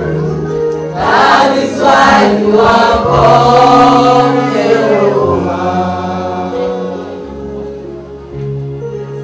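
Gospel worship song: a group of voices singing together over held keyboard chords. The singing fades out about halfway through, leaving the chords playing on.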